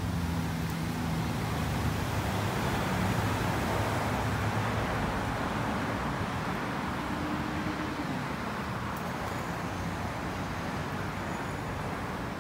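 Road traffic: a motor vehicle's engine hum over steady traffic noise, the hum dropping in pitch about eight seconds in as it passes.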